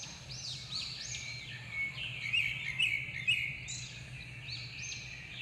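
Several small birds chirping in quick, overlapping arched chirps, thickest in the middle, over a low steady hum.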